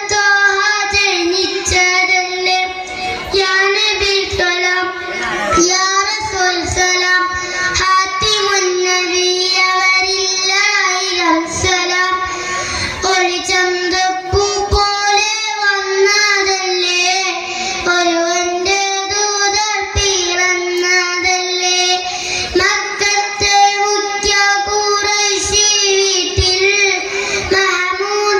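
A boy sings a Malayalam Nabidina (Milad-un-Nabi) song solo into a microphone, in one long, ornamented melodic line with wavering held notes.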